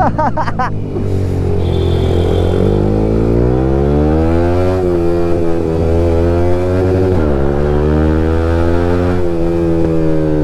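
Motorcycle engine pulling through the gears. Its pitch climbs, falls at an upshift about five seconds in, climbs again, falls at another shift around seven seconds, then holds fairly steady at cruising speed.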